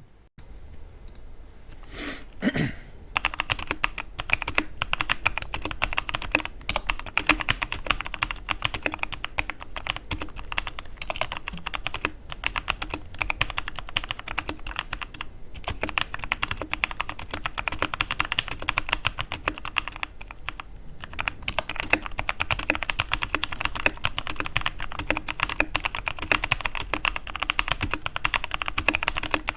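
Logitech G513 mechanical keyboard, its key switches freshly replaced, being typed on fast for a sound test: a dense run of key clicks that starts about three seconds in and pauses briefly twice.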